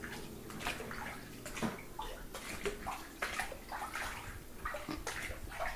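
Floodwater on a basement floor sloshing and splashing in irregular bursts, as someone wades through it.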